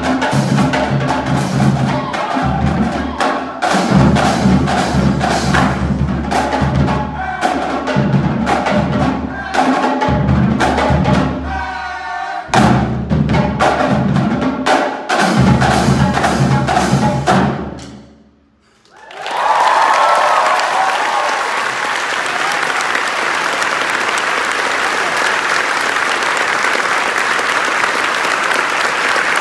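Marching drumline of snare drums, tenor drums, bass drums and cymbals playing a fast, dense cadence, with a brief break partway through, and stopping abruptly about 18 seconds in. After a moment's silence the audience breaks into steady applause, with a whoop at the start.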